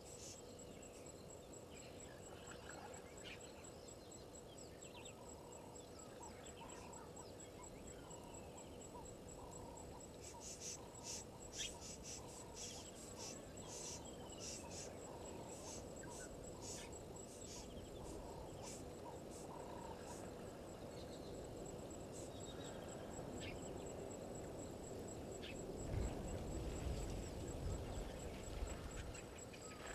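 Outdoor night-time bush ambience: a steady high insect trill, with a short animal call repeated about twice a second for some fifteen seconds. Near the end a louder low, rushing water sound comes as a hippo surfaces.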